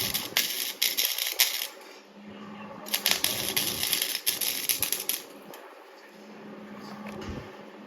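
Welding arc crackling on thin sheet steel in two bursts of a couple of seconds each, with a steady low hum underneath.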